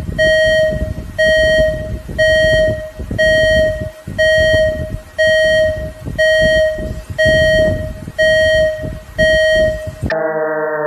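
Electronic alarm beeping, a buzzy tone about once a second, ten beeps over a rough low rumble. Near the end it cuts off and a slowly falling electronic tone begins.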